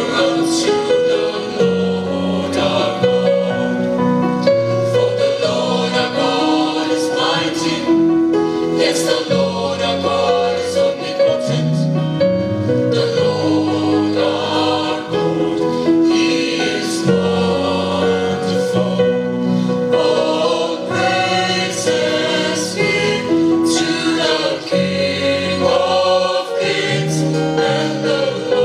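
Mixed choir singing in harmony, backed by electric bass guitar, acoustic guitar and keyboard, with a bass line moving in steps under the held chords.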